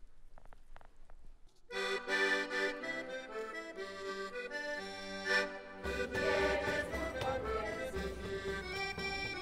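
Piano accordion starts playing a folk tune about a second and a half in. A few seconds later other instruments join with a steady low beat and the sound becomes fuller.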